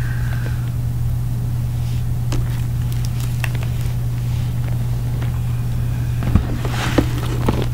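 Steady low hum, with a few faint clicks and, from about six seconds in, rustling and small knocks of someone moving close to the microphone.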